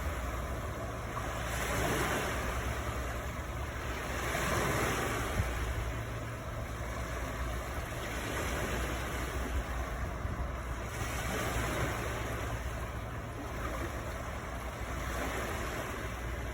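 Rushing water, a steady wash that swells and fades every few seconds, over a low rumble.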